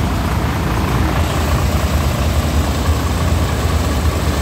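Heavy truck engine idling close by, a steady low running sound without change.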